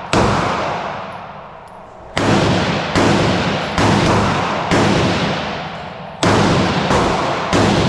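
Glock 48 9mm pistol fired seven times. After the first shot there is a pause of about two seconds, then shots follow about a second apart, each sharp report trailing off in a long echo.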